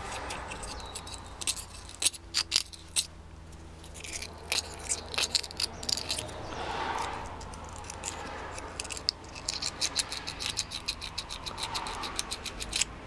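Sandpaper rubbing on the copper contacts inside a Bosch starter-motor solenoid cap to clean them: short, scratchy strokes, scattered at first, then a fast run of quick rubs over the last few seconds.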